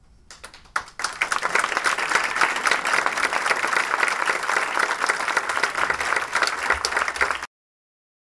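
Audience applauding: a few scattered claps, then full applause from about a second in, cut off suddenly near the end.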